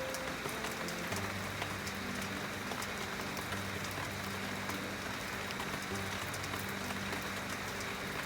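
Steady rain falling, with many single drops ticking and splashing on hard surfaces, over soft sustained background music notes.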